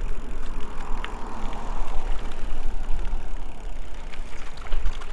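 Wind buffeting the microphone, a steady rushing noise with a heavy low rumble.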